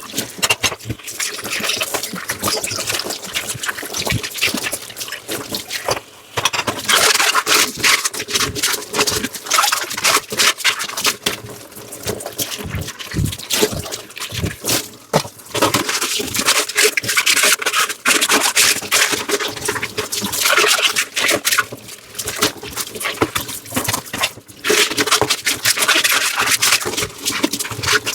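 Dishes being washed by hand: running and splashing water, scrubbing and rubbing on the dishes, and many small knocks and clinks of dishware.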